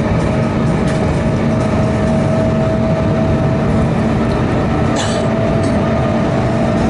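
ED9M electric multiple unit running at speed, about 120 km/h: a steady, loud rumble of wheels on rail with a faint steady whine. A brief high hiss comes about five seconds in.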